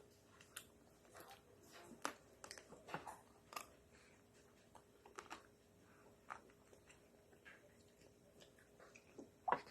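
Faint, irregular crunches and wet mouth clicks of someone chewing a Magnum ice cream bar, its chocolate shell cracking.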